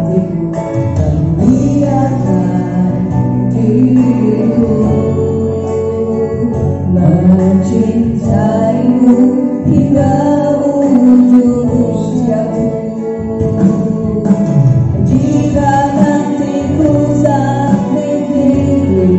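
A live song: a singer's voice over keyboard accompaniment, going on without a break.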